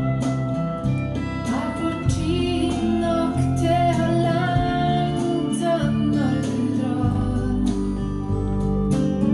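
A song with female singing played back through Monitor Audio PL300 II floor-standing hi-fi speakers.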